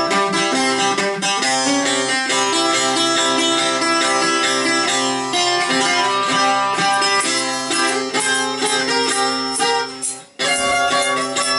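Bouzouki played solo: a fast run of plucked melody notes, with a brief break near the end before the playing picks up again.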